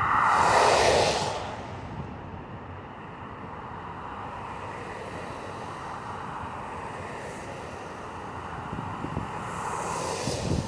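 Road traffic: a vehicle passes close by with a whoosh that falls in pitch as it goes, over a steady traffic rush, and another vehicle approaches near the end.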